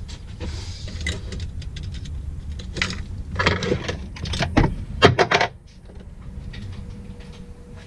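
Tools and small metal parts clinking and clattering as they are handled and rummaged through, with a run of louder knocks about three to five seconds in. A low steady rumble underneath cuts off suddenly about five and a half seconds in.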